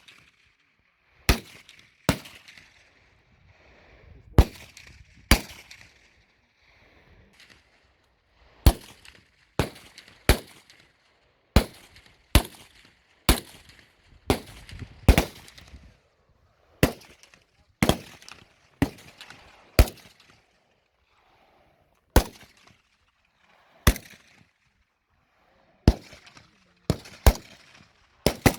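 Rifle shots from several shooters on a firing line: about two dozen single sharp reports at uneven intervals, some close together, each with a short echoing tail.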